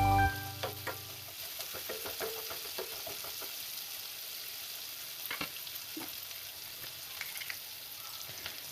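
Chopped onion, ginger, garlic and green chilli frying in oil in a kadai: a steady sizzle with the spatula's scrapes and taps as it is stirred. Background music cuts off just after the start.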